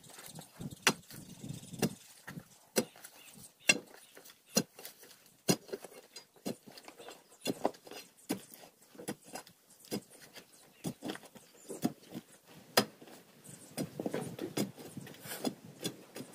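Long metal digging tool being driven into a bank of earth and stones, giving sharp knocks about once a second with lighter scrapes and clinks between.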